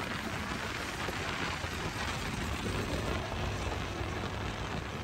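Motorcycle being ridden along a road: the engine runs under a steady rush of wind and road noise.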